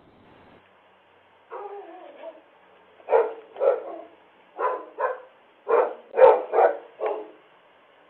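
A dog barking, eight sharp barks in quick pairs, after a brief whine about a second and a half in, heard through a doorbell camera's microphone.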